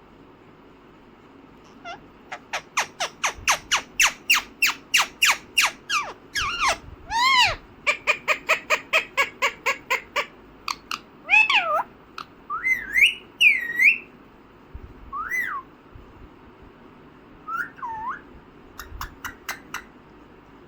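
Indian ringneck parrot calling. After about two quiet seconds comes a fast run of short, sharp chirps, about five a second, then rising-and-falling squawks and whistles mixed with further quick chirp runs.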